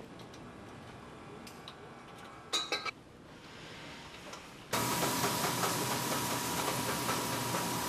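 Copper return bends clinking as they are fitted onto a boiler heat exchanger, with a brief metal clatter about two and a half seconds in. Then, about five seconds in, a gas brazing torch starts up suddenly and hisses steadily and loudly, with a steady tone running through the hiss.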